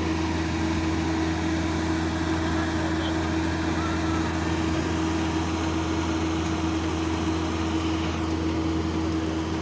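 Rice combine harvester's engine running steadily, a constant low hum with a steady higher drone over it.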